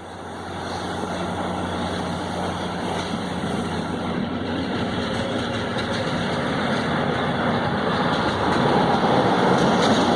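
Diesel engine of a railway maintenance train running with a steady low hum, growing gradually louder as the train draws near the level crossing.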